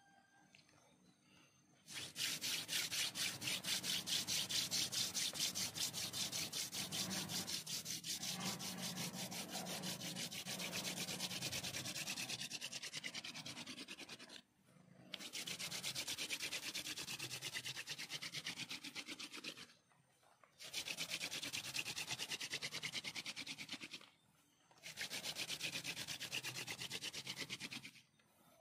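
Hand-drill friction fire: a wooden spindle spun back and forth between the palms, its tip grinding into a wooden hearth with a fast, rasping squeak. It comes in four bouts, the first about twelve seconds long and the rest shorter, with brief pauses as the hands reset at the top of the spindle. By the end the hearth is hot enough to smoke.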